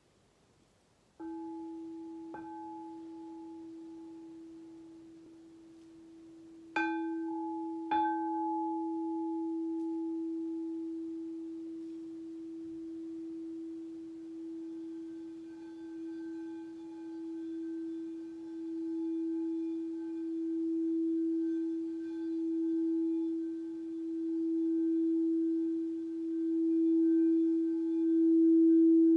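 Frosted quartz crystal singing bowl, struck with a mallet a few times in the first eight seconds and left ringing on one steady tone. The mallet is then circled around the rim, so the tone swells and ebbs in slow waves and grows louder toward the end.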